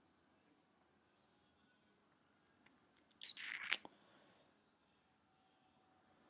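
Near silence: a faint, rapid high-pitched pulsing runs throughout, and a brief noise sounds a little after three seconds in.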